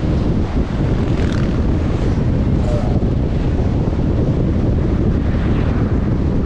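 Steady low rumble of a car driving, road and wind noise with no change in pitch.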